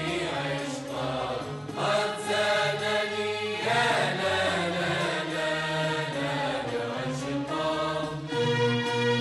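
Background music with a chanted vocal over held notes.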